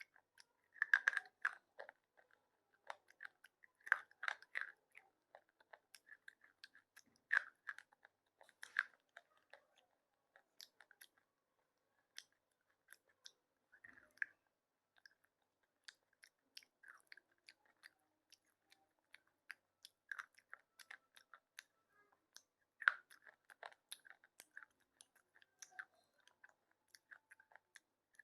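A person biting and chewing slate pencil: soft crunches and gritty clicks, with a few louder bites scattered through, the loudest near the start and about two-thirds of the way in.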